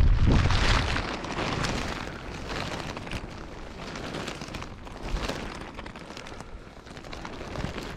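Wind buffeting the microphone, loudest as a low rumble in the first second, then easing to a quieter rustling hiss.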